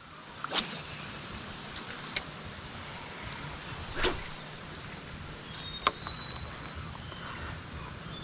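A steady hiss with about four sharp clicks and knocks spaced roughly one and a half to two seconds apart, the first the loudest, and faint high whistles in the middle.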